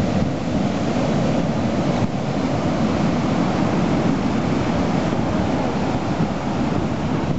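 Rough sea surf breaking and churning on the shore, with wind noise on the microphone; a steady rushing noise.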